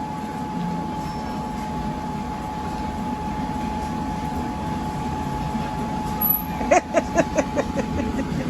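Steady low mechanical rumble with a constant thin whine, like running machinery or a vehicle heard from inside. Near the end, a quick run of short pitched sounds comes over it.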